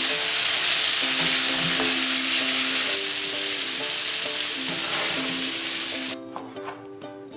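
Sirloin steak bites sizzling in hot oil and butter in a nonstick skillet, a loud steady hiss that cuts off suddenly about six seconds in. Plucked ukulele music plays underneath.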